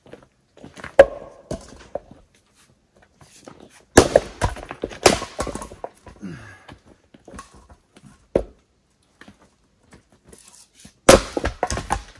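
Axes splitting firewood rounds: a series of sharp chopping strikes a few seconds apart, some followed by the crack of the wood splitting and pieces clattering down.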